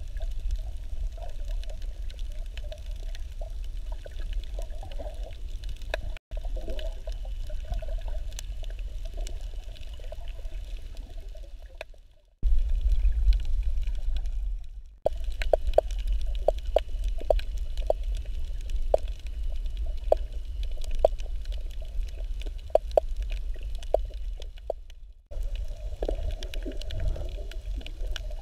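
Underwater sound picked up by a snorkeler's camera: a steady low rumble of water moving around it, with many short clicks and crackles, thickest in the middle stretch. It cuts out briefly several times.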